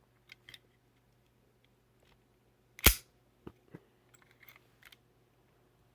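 Rusty antique toy cap gun being worked by hand: faint metallic clicks, then the hammer falls with one sharp, loud crack about three seconds in, followed by a few more small clicks as it is cocked again.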